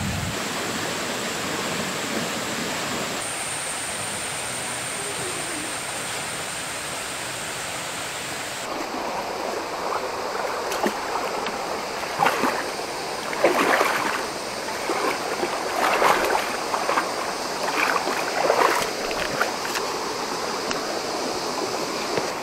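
Shallow river running over rocks with a steady rush. After about nine seconds it is heard close up, with irregular splashing and lapping of water against the rock.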